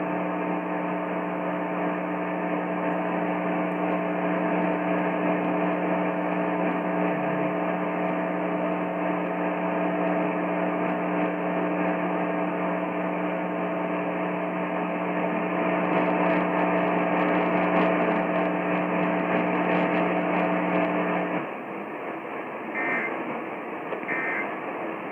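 Dead air on a radio relay of an Emergency Alert System test: a steady low hum with hiss, crackling toward the end, that cuts off about 21 seconds in. Then come three short digital data bursts about a second and a half apart, the EAS end-of-message signal.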